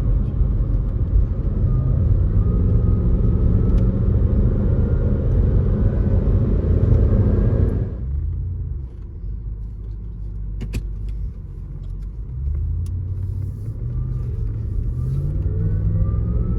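Range Rover Sport L320's supercharged V8 pulling under acceleration, heard from inside the cabin, with a faint rising supercharger whine over the engine and road rumble. About eight seconds in the engine note suddenly falls away as the throttle is eased, then builds again near the end. The supercharger is more audible than usual because the engine's decorative cover is off.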